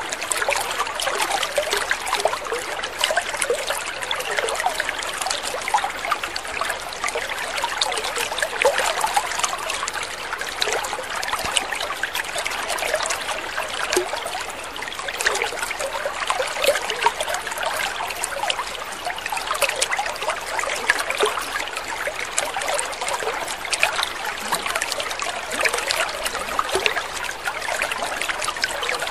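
Water trickling steadily, a continuous patter of small splashes with no change in pace.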